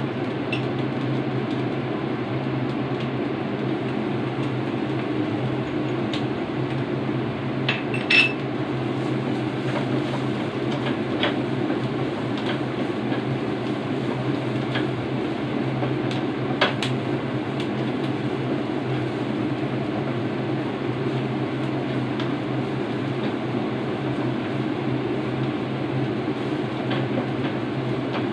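Metal slotted spatula scraping and tapping in a frying pan as chopped garlic is stir-fried, with a few sharp clinks, the loudest about eight seconds in. A steady hum and hiss runs underneath.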